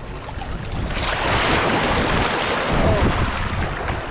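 Shallow surf washing in over the sand, swelling about a second in, with wind buffeting the microphone.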